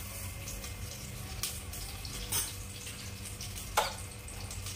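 Cumin seeds frying in hot oil in a pressure cooker: a steady sizzle with a few sharp crackles as the seeds begin to pop.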